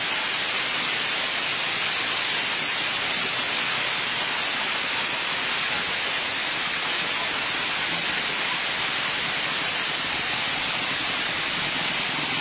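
Steady rushing hiss of heavy rain mixed with volcanic ashfall as the Mt. Bulusan eruption cloud sweeps over trees and corrugated metal roofs.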